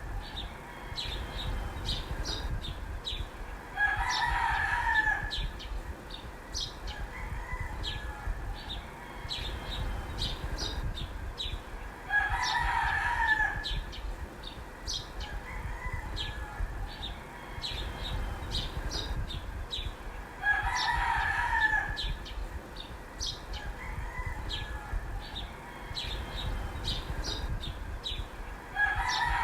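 A rooster crowing, about every eight seconds: three full crows and the start of a fourth at the very end. Short high chirps run between the crows.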